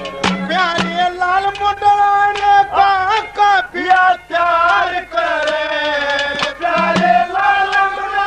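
A man sings a Haryanvi folk ragini in long, loud, held notes with a wavering pitch. A steady low accompanying note is under the voice at first and returns briefly later, with a few drum strokes.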